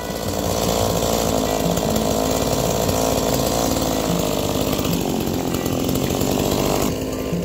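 Stihl MS170 two-stroke chainsaw running at high revs with its bar pinched and stuck in a log. The engine drops suddenly to a lower, quieter running speed near the end.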